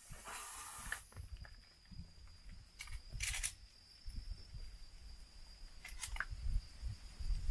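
Irregular low wind rumble on the microphone, with a few short rustling noises and, from about halfway, a faint steady high-pitched whine; no gunshot.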